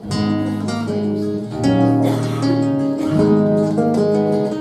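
Acoustic guitar playing a strummed chord introduction to a song, with a new chord struck about every second.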